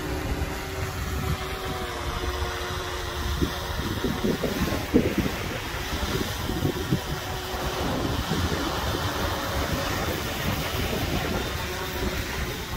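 Quadcopter fishing drone hovering and flying out close overhead with a fishing line attached, its rotors giving a steady hum. Wind rumbles on the microphone.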